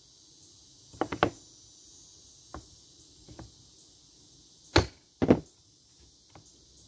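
Wooden leg block set into a plywood jig and struck on its end with a claw hammer, driving it onto a screw point to mark its centre: a handful of separate knocks, the two loudest close together about five seconds in. Crickets chirring steadily behind.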